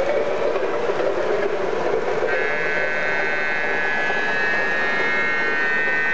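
MTH RailKing O-gauge model train cars rolling past on the track with a steady rumble. About two seconds in, a long steady high-pitched tone joins it and holds for about four seconds.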